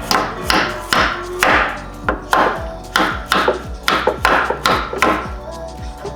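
Background music with a steady beat: sharp percussive hits about twice a second over a sustained tonal bed.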